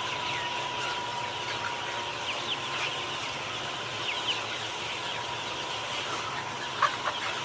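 A flock of chickens calling, many short high clucks and peeps overlapping continuously. A single sharp, loud knock or squawk comes near the end.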